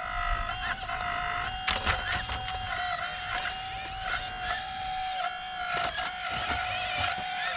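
Electric pump motor of a radio-controlled hydraulic excavator whining at a steady pitch while it works, with scattered clicks and knocks. Higher chirping glides rise and fall over the whine.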